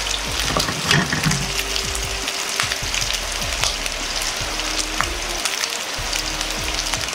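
Chicken skin frying in a frying pan, sizzling steadily with many small pops and crackles as its fat renders out into chicken oil.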